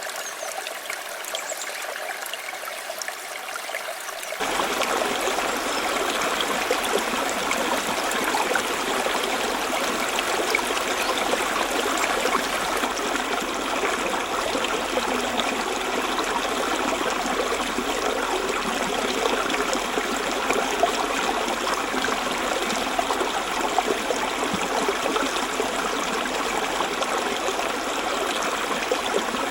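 Rushing river water running steadily. About four seconds in it switches abruptly to a louder, fuller rush.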